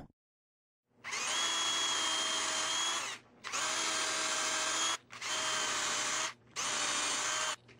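Cordless drill running a 1/4-inch bit through a doweling jig's steel guide spacers to bore dowel holes, starting about a second in. The drill runs four times, for one to two seconds each, with short pauses between, its motor holding a steady pitch.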